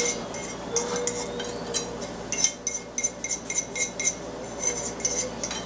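A utensil scraping and clinking against the inside of a small pot as sticky caramelized coconut is pushed out of it, with a quick run of clinks in the middle.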